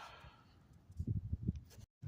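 Footsteps walking through a field: a few soft, low thuds about a second in.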